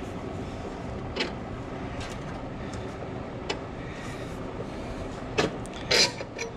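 A few short metallic clicks and knocks, loudest near the end, as the Jeep XJ's engine-mount through-bolt is worked out by hand with the engine jacked up to take tension off it.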